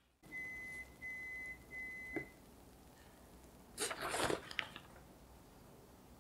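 An oven's electronic timer beeps three times, each beep about half a second long, signalling that the bake is done. About four seconds in, a fabric oven mitt rustles briefly, with a light knock, as it grips the metal muffin tin.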